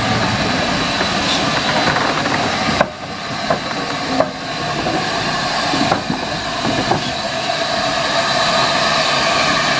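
LNER A4 Pacific steam locomotive No. 60009 Union of South Africa passing close by under steam: a steady hiss of steam and rumble of the wheels and motion, with a few sharp knocks.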